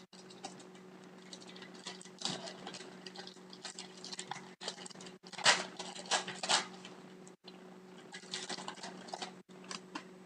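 Wrapper of a hockey trading-card pack crinkling and rustling as the pack is opened, with the cards slid and shuffled in the hands; the handling is loudest about halfway through. A steady electrical hum runs underneath.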